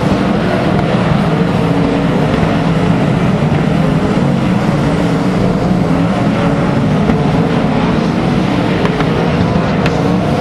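A field of winged sprint cars racing together on a dirt oval, their methanol-burning V8 engines running hard in a loud, steady blend of overlapping engine notes.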